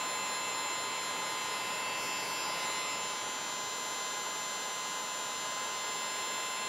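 Heat gun running steadily, blowing hot air with a steady whine to shrink clear heat-shrink tubing over a soldered wire splice.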